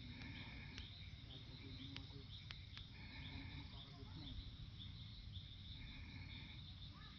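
Faint evening insect chorus, crickets chirping in a steady pulsing high band, with a lower trill that comes and goes in stretches of about a second. There are a few sharp ticks early on, over a steady low rumble.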